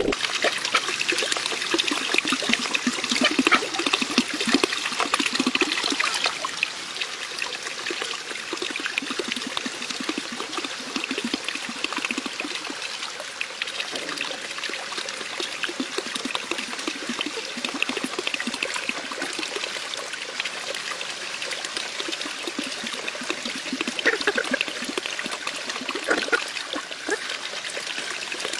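Running water trickling and splashing: a steady, crackly running-water noise, a little louder in the first few seconds.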